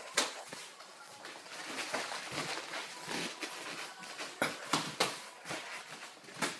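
Irregular sharp slaps and thumps of light kickboxing sparring, strikes landing and feet moving on the ring mats, with the sharpest one just after the start and a quick run of three about four and a half seconds in.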